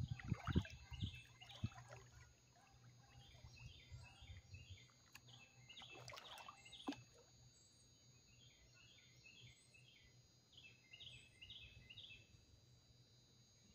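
Faint outdoor ambience of birds chirping in short repeated phrases. There are a few low thumps in the first couple of seconds and a brief rush of noise about six seconds in.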